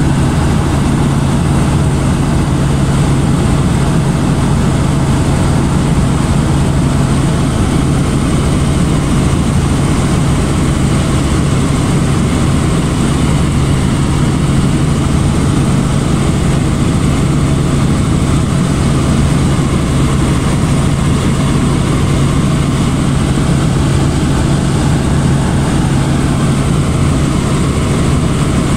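Robinson R44 helicopter in cruise flight, heard inside the cabin: its piston engine and rotors make a steady, loud drone with a strong low hum that holds unchanged.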